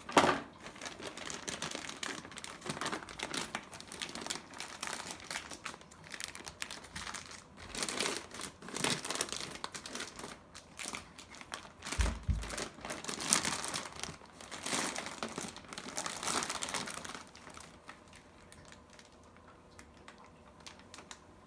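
Shipping packaging for a live fish being opened by hand: irregular crinkling, rustling and tearing in bursts, with a dull bump about twelve seconds in, dying down near the end.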